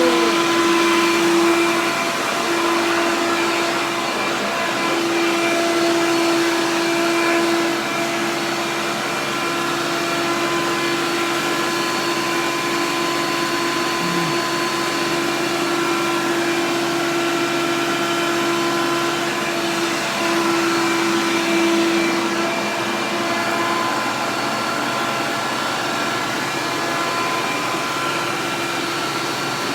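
Vacuum cleaner running steadily, its motor giving a constant whine over a rushing air noise, with small swells in level as it is worked.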